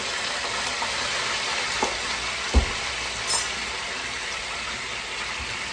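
Broccoli rabe and garlic sizzling in hot olive oil in a skillet, a steady frying hiss. A short knock about two and a half seconds in.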